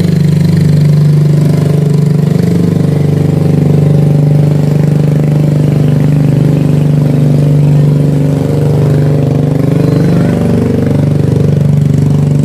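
An engine running steadily at idle, a constant low hum that holds without a break.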